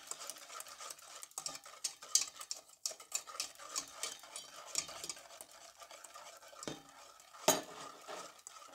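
Wire whisk stirring a milky cocoa mixture in a stainless steel pot, its wires scraping and clicking against the pot in quick, irregular strokes, with a louder clink about seven and a half seconds in.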